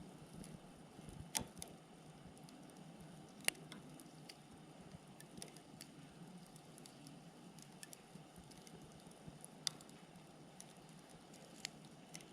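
Firewood burning in a campfire: a faint steady hiss with scattered sharp crackles and pops, four louder pops standing out, the loudest about three and a half seconds in.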